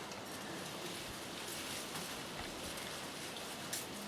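Faint steady hiss of background noise, with one small click near the end.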